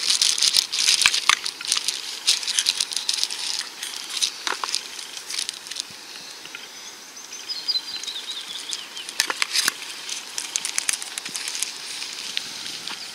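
Rustling and clicking of plastic and cards being handled in a clear plastic geocache box, in busy clusters during the first few seconds and again from about nine seconds in.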